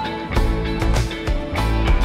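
Background music with plucked guitar and a steady beat.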